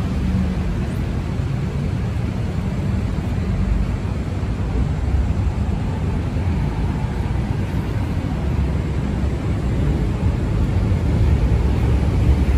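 Steady low rumble of vehicle road noise, even throughout with no sudden events.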